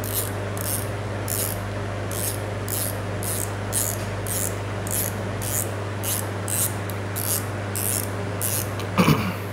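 Short rubbing strokes, about two a second, as a hand twists a cap onto the spool of a Tica Galant GLAT 5000 spinning reel, over a steady low hum.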